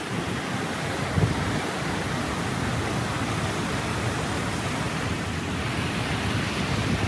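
Water gushing through an open sluice in a lock gate and churning into the lock chamber as it fills: a steady rush of falling water. A brief low bump from wind on the microphone about a second in.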